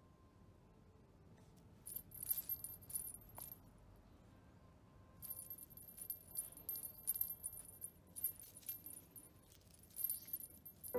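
A small jingle bell on a feathered cat toy jingling in irregular shakes, first briefly about two seconds in, then again for most of the second half.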